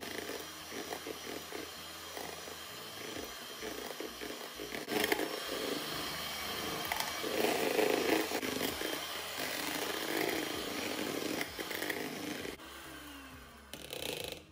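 Philips electric hand mixer running, its twin wire beaters whipping egg whites in a plastic bowl toward stiff peaks. It eases off and then cuts out near the end.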